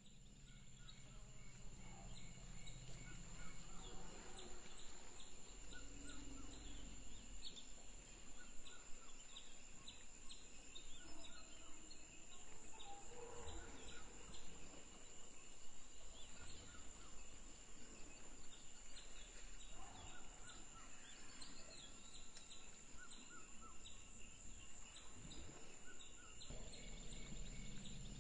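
Forest ambience: many short bird chirps scattered over a steady high-pitched insect drone.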